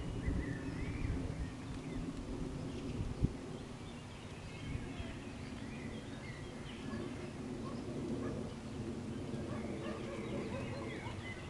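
Birds chirping and calling on and off over a low steady hum, with a low rumble in the first second and a single soft knock about three seconds in.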